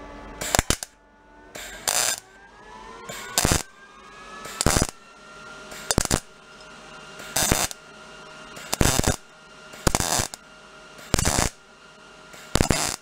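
MIG welder, turned down for thin 18-gauge sheet, laying a string of short tack welds on a steel motorcycle headlight bucket. About ten brief bursts of arc, roughly one every second and a half, each cut off as the trigger is released.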